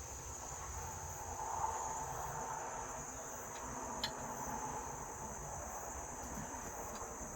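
A steady high-pitched background drone, with a single light click about four seconds in.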